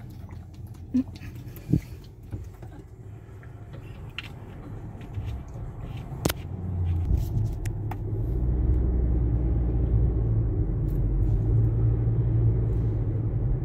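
Car driving, heard from inside the cabin: a steady low road and engine rumble that grows louder about seven to eight seconds in, with a few faint clicks.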